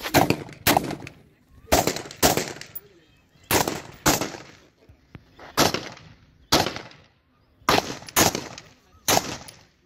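Colt AR-15/M4-type 5.56×45 mm rifle fired semi-automatically: about eleven single shots, many in pairs about half a second apart with pauses of a second or so between pairs, each shot followed by a short echo.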